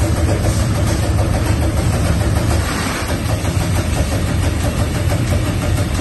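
TRUMPF TruPunch 5000 CNC punching machine at work, punching a sheet: a steady low hum with a rapid, continuous rattle of punch strokes.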